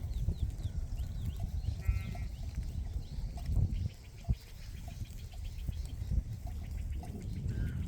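Sheep bleating, a short call about two seconds in and a fainter one near the end, over a steady low rumble.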